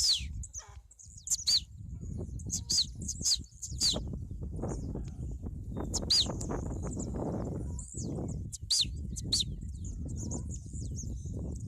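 Blue-black grassquit (tiziu) repeating its short, sharp song note, the call it gives while leaping up from its perch: about nine high chirps with a falling hook, at irregular intervals, over a steady low rumble.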